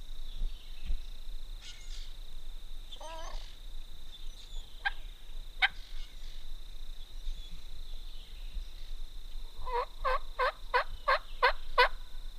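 A run of seven evenly spaced turkey yelps near the end, about three a second.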